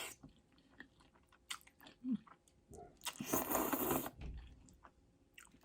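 Close-miked mouth sounds of someone eating spaghetti in meat sauce: small wet clicks and chewing, with a louder, noisier bite or slurp lasting about a second roughly three seconds in.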